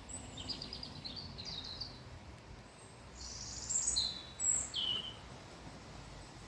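Songbirds singing outdoors: a series of short high chirps and trills, then two clear whistled notes that fall in pitch a little past the middle, over a faint low background rumble.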